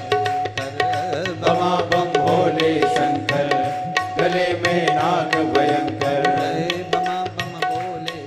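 Instrumental interlude of a Hindi devotional bhajan: tabla plays a quick, steady rhythm under a held note and a wavering melody line.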